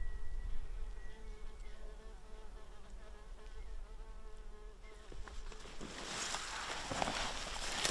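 Distant bull elk bugling: a high whistled note that holds for about two seconds over a lower buzzy tone that fades out about five seconds in. Rustling noise rises near the end.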